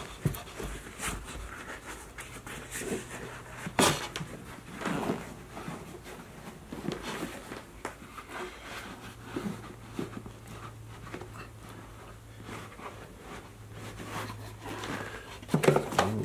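Handling noises of leather boots and insoles being worked into them: scattered rustles and soft knocks, with a sharp knock about four seconds in and another near the end, over a low steady hum.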